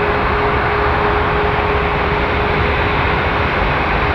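Boeing 747-8F freighter's GEnx jet engines running at taxi power: a steady rushing noise with one constant tone running through it.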